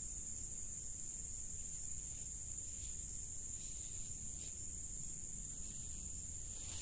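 Insects, likely crickets, shrilling in a steady, unbroken high-pitched drone, over a low rumble.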